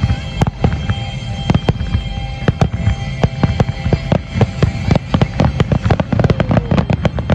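Aerial fireworks shells bursting in quick, irregular succession, several bangs and cracks a second, coming thicker near the end, with music playing underneath.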